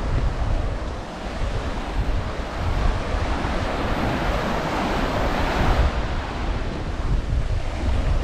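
Surf breaking and washing up a sand beach, with one wave's hiss swelling about halfway through and fading again, over wind buffeting the microphone.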